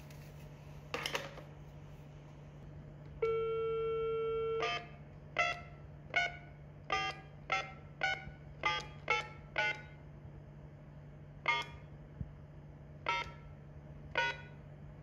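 Panasonic corded desk phone on speakerphone: a short beep as the speaker button is pressed, then a steady tone for about a second and a half, cut off by the first key press. About a dozen short keypad tones follow, one per digit, as a number is dialled on the keypad.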